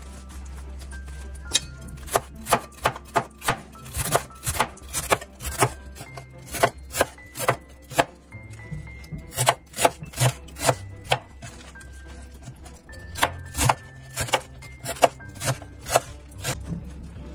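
Large chef's knife chopping a bunch of fresh mallow leaves and stems on a plastic cutting board: sharp knocks of the blade against the board, roughly two a second in uneven runs, with a short lull about two thirds of the way through.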